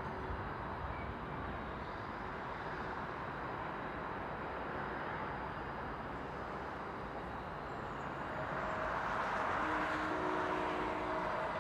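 Rhaetian Railway Allegra electric multiple unit creeping into the platform: a steady rumble of wheels and running gear that grows louder near the end, when a few faint steady tones join in.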